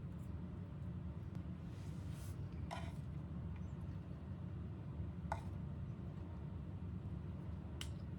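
A steady low hum with a few light clicks, about three times.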